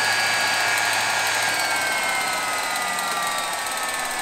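GTD-350 gas turbine engine spinning down unlit after a start attempt that did not catch: a rushing hiss with a whine that falls slowly in pitch as the rotor slows.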